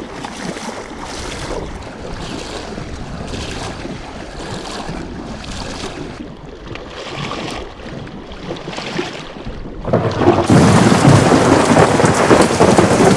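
Wind and water rushing steadily, then about ten seconds in a sudden loud onset of heavy rain with a thunder rumble.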